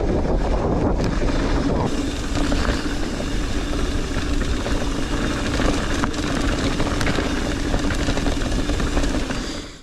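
Wind buffeting a GoPro Hero 9's microphone during a fast mountain-bike run, mixed with tyre and trail noise and small rattles. It cuts off abruptly near the end.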